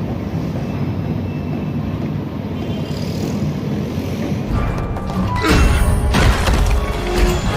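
Soundtrack music over a steady low rumble, turning much louder about four and a half seconds in with dense crashing and impact effects.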